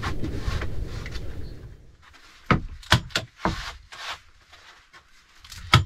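Foam sleeping mats being rubbed and slid on a wooden plank bed, a rustling scrape that fades out after about two seconds. Then come half a dozen sharp clicks and knocks from handling, the loudest near the end.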